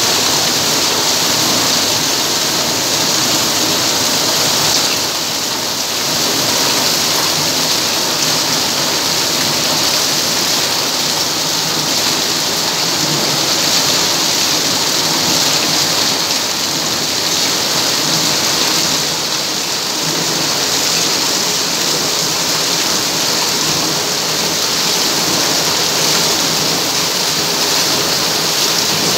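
Heavy rain falling hard, a steady dense hiss of drops splashing on a wet surface.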